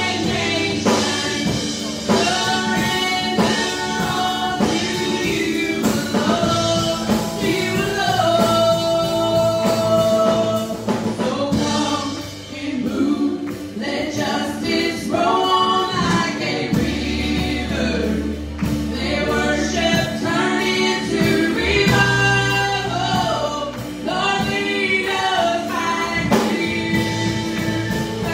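Live church worship band performing a song: several women singing together into microphones over keyboard and band accompaniment, with sustained bass notes underneath.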